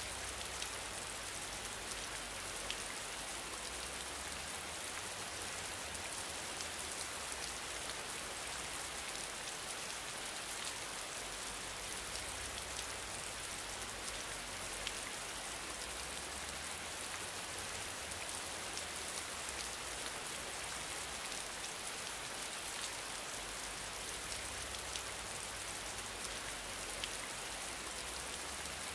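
Steady rainfall: an even hiss with faint scattered drop ticks.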